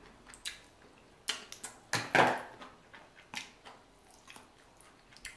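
Close-miked eating of a seafood boil: scattered sharp clicks and wet crunches as seafood is handled, cracked and chewed, with one louder, longer crunch about two seconds in.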